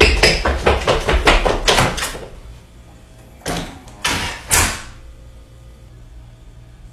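Fast running footsteps on a hard floor, about five quick strides a second for the first two seconds. About three and a half seconds in, three brief noisy knocks follow.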